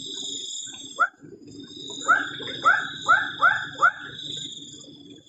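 An animal calling: one short call about a second in, then five more in quick succession, each a brief rising-then-falling note. Behind them runs a steady high-pitched insect drone.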